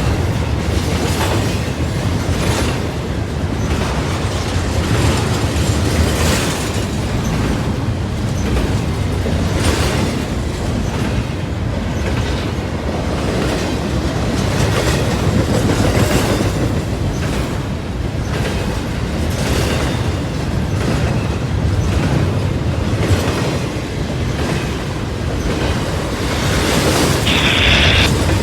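Freight train cars rolling past, a steady rumble with the wheels clicking irregularly over rail joints. A brief high-pitched squeal, like wheel squeal, about a second before the end.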